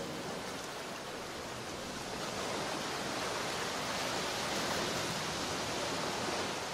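Sea surf washing: a steady rushing hiss that swells a little in the middle and eases again near the end.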